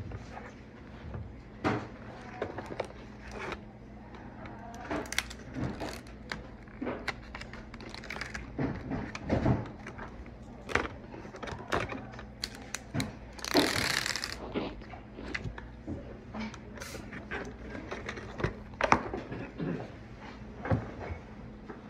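Small objects being handled: an irregular string of light clicks, taps and knocks, with one brief rustle about fourteen seconds in, over a low steady hum.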